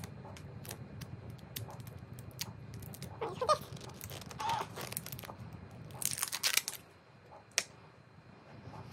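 A small cardboard cosmetics box handled and opened by hand: light clicks and rustling of the cardboard, with a longer scraping rustle about six seconds in as the bottle is slid out, and one sharp click near the end.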